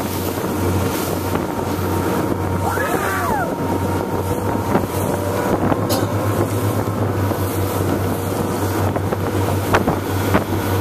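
Outboard motor of a rigid inflatable boat running steadily at speed, with water rushing and splashing past the hull and wind buffeting the microphone. A few brief knocks come through, the loudest near the end.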